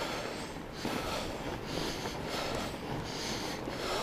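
A fat-bike rider breathing hard and rhythmically while pedalling, about one breath in or out every two-thirds of a second, over steady tyre noise from riding on packed snow.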